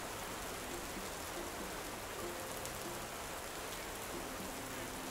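Steady rain falling on tropical foliage and paving, an even patter of raindrops.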